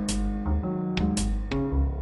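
Background music: pitched instruments, guitar-like, over a steady beat with regular cymbal-like hits.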